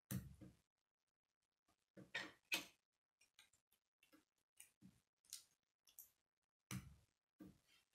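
Plastic K'nex rods and connectors clicking and tapping as they are snapped together by hand: an irregular run of short, faint clicks, with louder clusters at the start, about two seconds in, and near the end.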